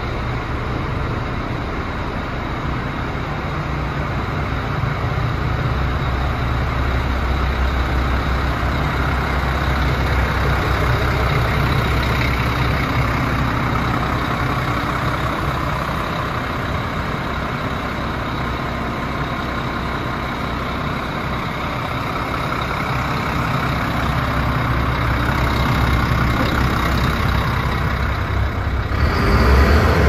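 DAF CF75's 310 bhp turbo Euro 5 diesel engine idling steadily with a constant low hum, briefly louder near the end.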